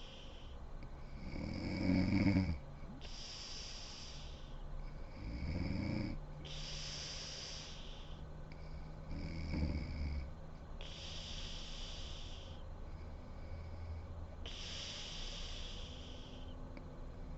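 A sleeping woman snoring: three low, fluttering snores about four seconds apart, the first the loudest, each followed by a breathy hiss of air. After the third snore, the breathing carries on as softer hisses without the low snore.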